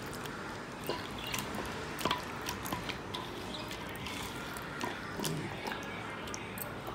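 Wet squelching and small clicks of a hand rubbing thick yogurt masala marinade into chicken pieces in a stainless steel bowl.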